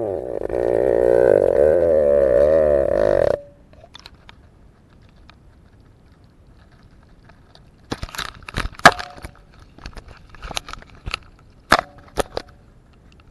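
Fishing line running through fingers and rubbing on the camera rig as it is hauled up, a loud rasp with a wavering pitch that cuts off suddenly after about three seconds. From about eight seconds in, a run of sharp knocks and clatters as the rig is handled out of the water.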